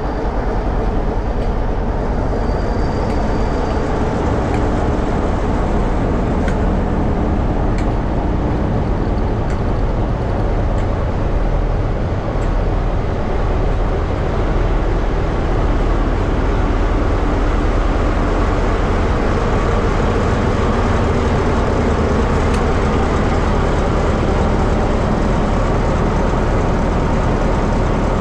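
Class 47 diesel-electric locomotives' Sulzer engines running close by, a loud, steady drone with its weight deep down.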